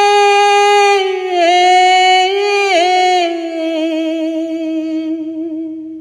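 Woman singing an Urdu naat solo, holding one long sung note with small ornamental wavers. The note settles a little lower partway through and fades out near the end.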